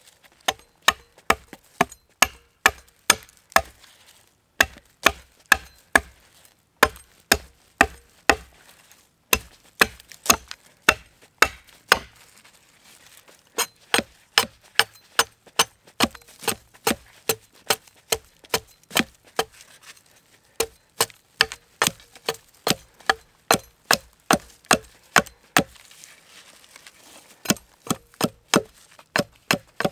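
Cold Steel Viking Battle Axe chopping into a downed log: quick, sharp strokes, about two a second, in runs broken by short pauses.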